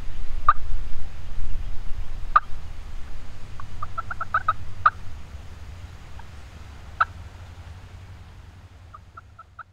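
Turkey yelps: single short notes a second or two apart, a quick run of about seven notes in the middle and a short run near the end, over a low steady rumble that fades away.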